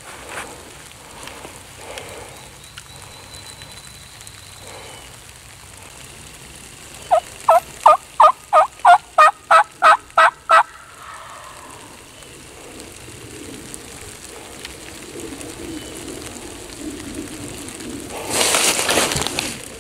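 A loud series of about eleven turkey yelps, evenly spaced at about three a second, partway through. A short rustling noise follows near the end.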